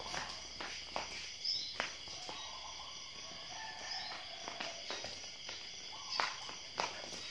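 Irregular sharp taps and scuffs of footsteps and a small ball being kicked and bouncing on tiled paving, the loudest knocks about six and seven seconds in. A steady insect chorus, crickets or cicadas, runs underneath.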